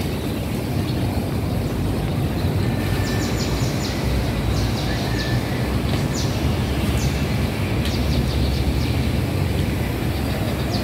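A steady low outdoor rumble, with small birds chirping in quick high-pitched runs from about three seconds in until shortly before the end.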